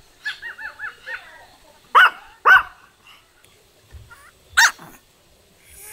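Pomeranian barking at a person passing by: a quick run of about five high yips, then two sharp loud barks half a second apart, and one more bark later.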